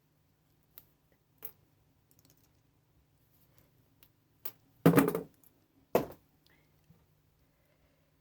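Light clicks and taps of small metal parts and hand tools being worked, then a loud clatter about five seconds in and another sharp knock about a second later, like scrap pieces being dropped onto a pile.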